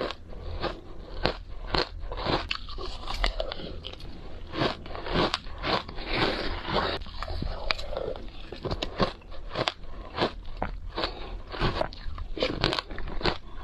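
Matcha shaved ice being bitten and chewed close to the microphone: a continuous stream of irregular crisp crunches and crackles.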